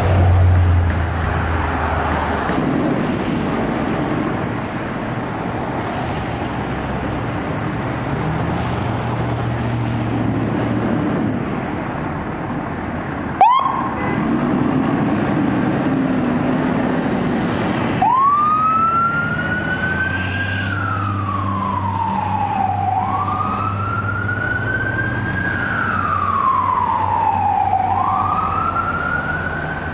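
Fire truck idling amid street traffic. After a cut about halfway through, a short siren chirp, then from about 18 s a fire truck siren wailing, rising and falling in pitch about every five seconds.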